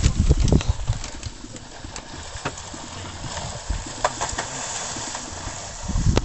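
Water splashing and scattered knocks as wolves attack a large deer standing in a shallow stream, mixed with the rumble of a handheld camera being moved through brush. The rumble is loudest at the start and near the end, with a quieter stretch in the middle.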